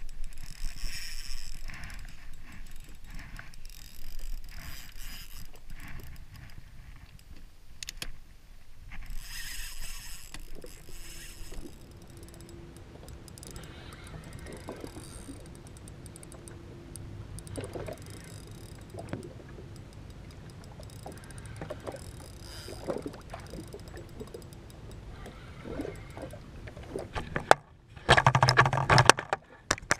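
Water lapping against the hull of a drifting jet ski, with wind gusting on the microphone and a spinning reel being wound. Near the end, a much louder burst of noise lasting about two seconds.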